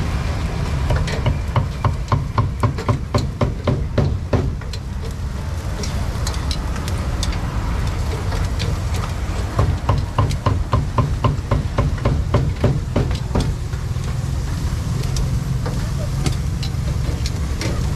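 Two runs of quick sharp knocks from the grill stall's utensils, about three to four a second, over a steady low rumble of street traffic.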